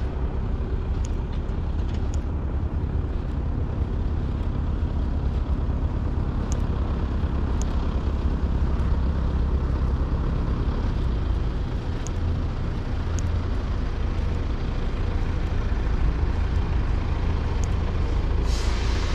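Steady low engine rumble, with a short burst of hissing near the end.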